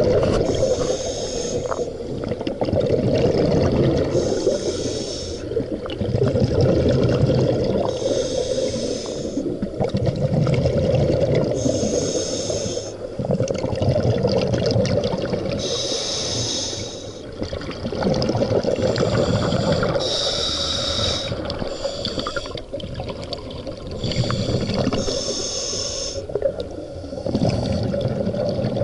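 Scuba diver breathing through a regulator: a hiss with each inhale, then bubbling on each exhale, repeating about every four seconds.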